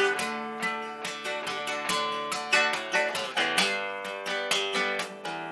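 Classical acoustic guitar strummed and picked in a steady rhythm, an instrumental passage with each chord ringing on between strokes.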